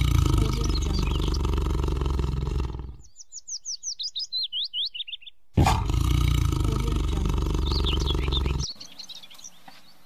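Two long, low tiger roars, about three seconds each, the second starting about five and a half seconds in. Between them a bird gives a quick run of a dozen or so sweeping whistled notes that falls in pitch, and faint bird chirps sound over the roars.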